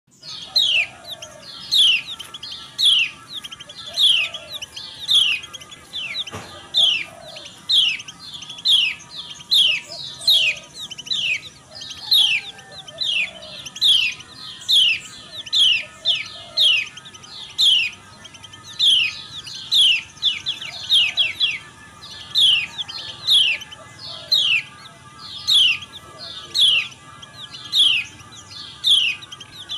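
Female kecial kuning (white-eye) calls: a sharp 'ciak' note that slides quickly downward, repeated steadily a little under twice a second. This is the female call used in a masteran lure recording to set males singing.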